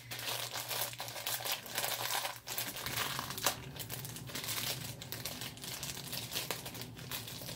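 Crinkly packaging crackling and rustling continuously as a Funko mystery mini figure is worked free of its wrapping by hand.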